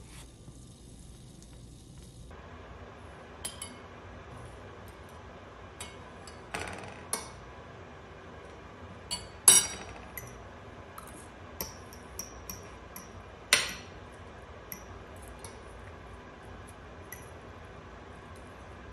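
Metal spoons clinking against ceramic bowls and plates while eating: scattered light clinks, with two sharper, louder ones about halfway and two-thirds through.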